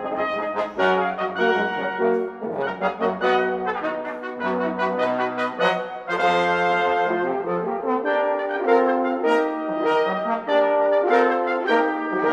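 Brass ensemble music: trumpets, trombone and horn playing a lively passage of quick, shifting notes.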